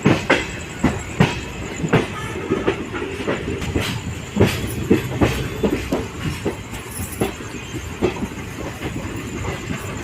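Passenger train running, its wheels knocking irregularly over rail joints and points amid a steady rumble.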